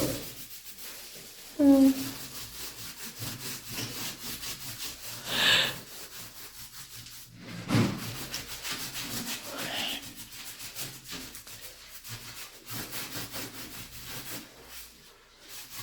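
Continuous scratchy rubbing and scraping on tile, typical of grout being worked into the tile joints.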